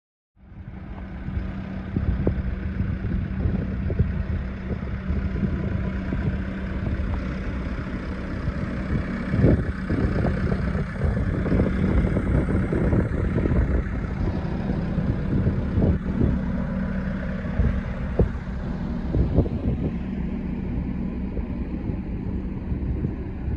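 Diesel engine of a Volvo ECR88D compact excavator idling steadily with a constant low hum, with wind buffeting the microphone in irregular gusts.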